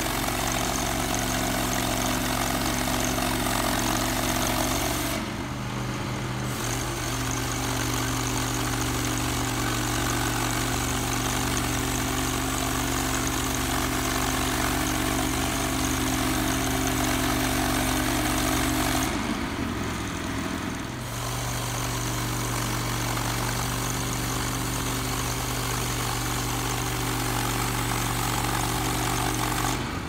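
Norwood LM29 portable bandsaw mill cutting a log: its gas engine runs steadily under load as the band blade saws through the wood. The sound shifts briefly twice, about five and twenty seconds in, and fades out at the very end.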